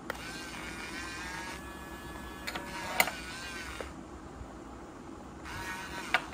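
Small electric motors of a toy RC excavator whining as the boom and arm move, the pitch rising and falling. A sharp click comes about three seconds in. A shorter run of whine near the end finishes with another click.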